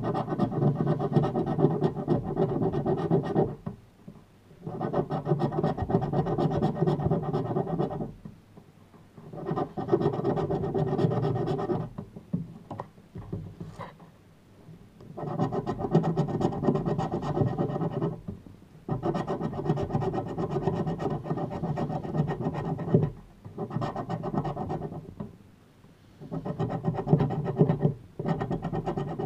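A scratch-off lottery ticket being scraped with a small flat tool on a wooden table. The scratching comes in about seven spells of a few seconds each, with short pauses between strokes.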